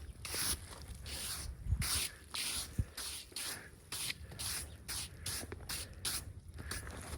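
Quick repeated hand scraping strokes on a freshly milled white oak slab, about two a second, with no saw running.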